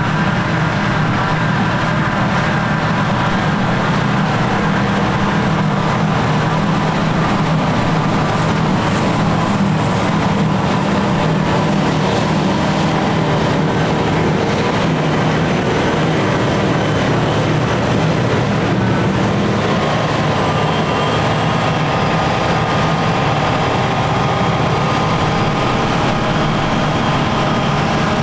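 John Deere 6950 self-propelled forage harvester chopping grass silage under load: a loud, steady machine drone of its engine and cutterhead, with the chopped grass blown out through the spout. A tractor runs alongside. The note shifts a little about twenty seconds in.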